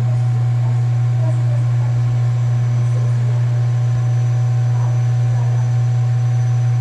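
Steady low drone of a worn front wheel bearing on a Toyota Yaris, holding one even pitch throughout.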